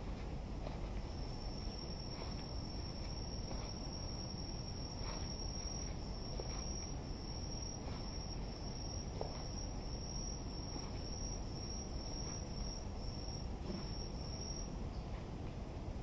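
A night insect trilling one steady high-pitched note that starts about a second in and stops near the end, over a steady low background rumble.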